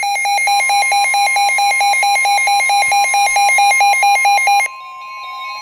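Emergency Alert System alarm tones: a loud, fast electronic beeping pulsing evenly over a steady high tone. Near the end the beeping cuts off suddenly and the steady tone carries on alone.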